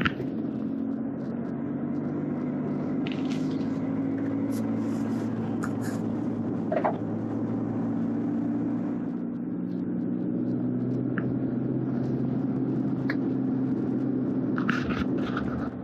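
A car engine and its tyres driving on a wet road, heard from inside the car: a steady low drone with a few faint clicks and ticks.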